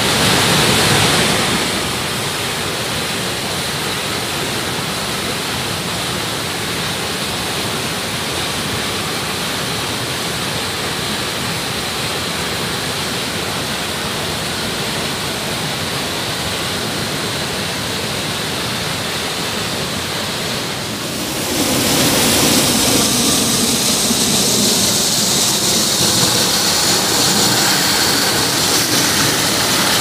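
Mountain waterfall, white water rushing steeply over boulders close by: a loud, steady wash of water noise, which grows louder and fuller about two-thirds of the way through.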